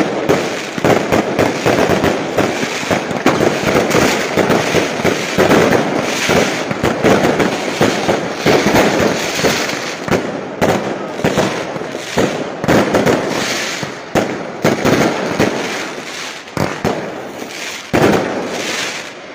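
Fireworks and firecrackers going off in rapid, overlapping bangs and crackles. They thin out over the last few seconds, with one loud bang near the end.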